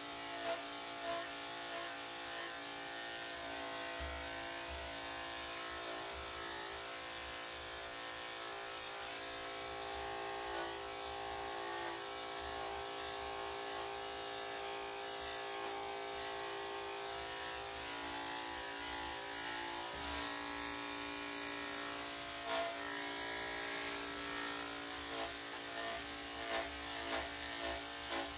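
Corded electric dog clippers fitted with a #7 blade running with a steady hum as they clip a Lhasa Apso's coat, with a run of short ticks over the last few seconds.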